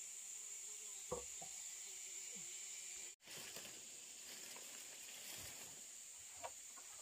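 Steady high chirring of forest insects, with a faint knock about a second in and another near the end.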